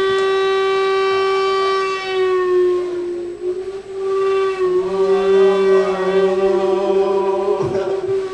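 A long held musical note with rich overtones that sags slightly in pitch and recovers. Partway through, a second, lower note sounds with it for about three seconds before dropping away.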